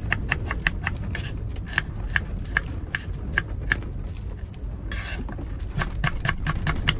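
Rhythmic metallic clicking, about three clicks a second, of a kitchen knife and utensils working on a fish in a small pot, with a brief hiss about five seconds in. A steady low rumble of wind runs underneath.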